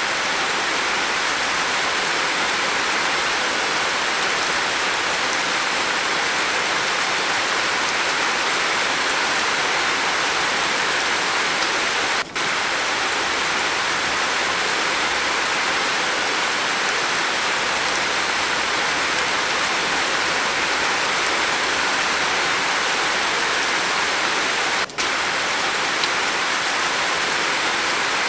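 Steady heavy rain falling on a roof, an even hiss with no thunder. The sound drops out for an instant twice, about twelve seconds apart.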